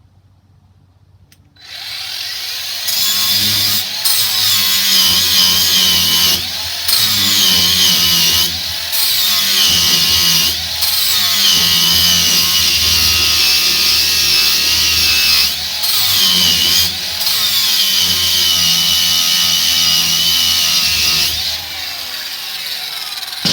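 Hychika 20 V cordless angle grinder spinning up and grinding down a weld on steel angle iron with a flap sanding disc. Its high whine drops in pitch each time the disc is pressed into the work and climbs back when eased off, several times over. It shuts off near the end and winds down.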